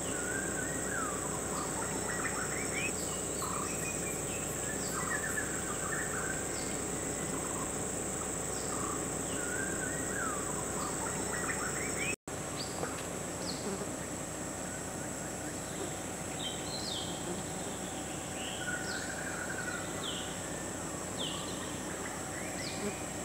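Steady high-pitched insect drone with many short bird chirps and quick whistled notes scattered through it. The sound cuts out for an instant about twelve seconds in.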